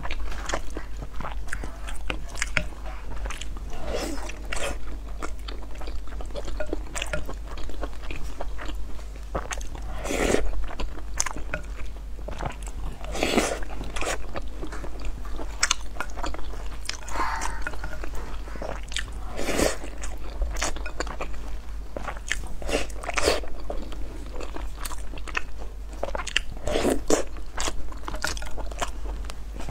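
Close-miked chewing and wet mouth sounds of someone eating rice and braised pork belly, with many small clicks scattered throughout.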